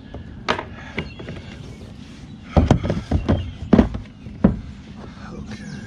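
Hollow knocks and clunks of gear being handled against a plastic kayak hull: a couple of light clicks, then a quick run of loud thumps about halfway through.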